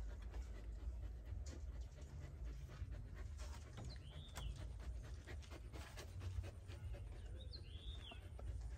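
Siberian husky panting, with light clicks and taps, likely its claws on the bamboo-slat floor. Two short high squeaks come about four and eight seconds in, over a steady low rumble.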